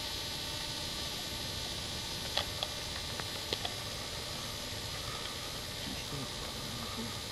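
Steady hiss and hum of a camcorder's own noise, with a few faint, sharp clicks about two and a half and three and a half seconds in.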